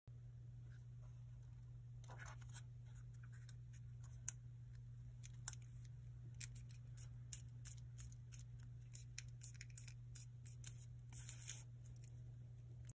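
Crisp rustles and clicks of a thin origami paper strip being folded in half lengthwise and creased between the fingers, scattered through and densest near the end, over a low steady hum.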